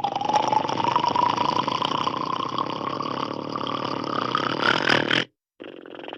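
Cartoon dinosaur roar sound effect: a long, rough roar whose pitch rises slowly, cutting off suddenly about five seconds in. After a brief gap a second growl starts and begins to fade.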